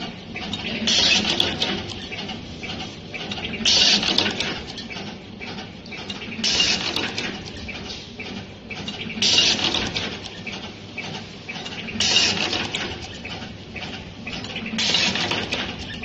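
Single-head automatic wire cutting, stripping and crimping machine running its cycle on wire: a short burst of hiss about every three seconds, six times, over a steady mechanical clatter.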